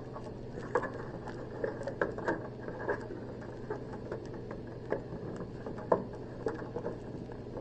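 Light, irregular clicks and taps of hands handling a power supply and its cable connectors inside an ultrasound machine, over a low steady hum.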